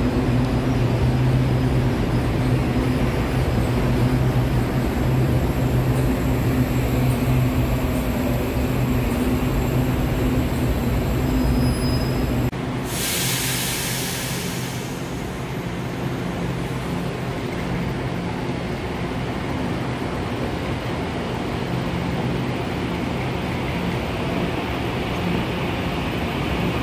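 Taiwan Railways EMU800-series commuter train running alongside an underground platform, its motors giving a steady low hum. About twelve seconds in the sound cuts abruptly to an EMU900-series commuter train running along a station platform, starting with a brief hiss.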